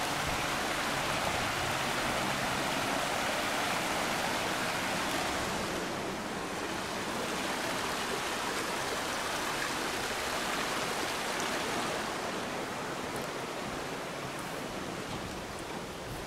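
Nugget Falls waterfall rushing: a steady wash of falling water that eases slightly after about twelve seconds.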